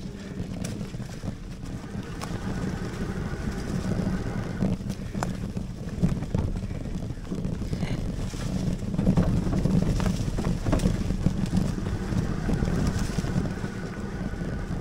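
A Lectric XPeak fat-tyre electric bike being ridden along a dirt trail: the tyres and wind on the microphone make a steady rumble, and the bike rattles and knocks over bumps, most heavily around the middle.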